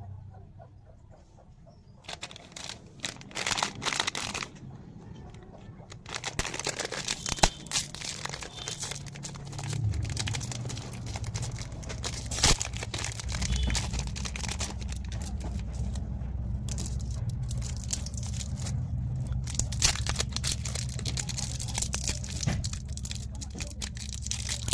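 Plastic candy wrappers crinkling and tearing as sweets are unwrapped, a dense run of crackles and clicks starting about two seconds in.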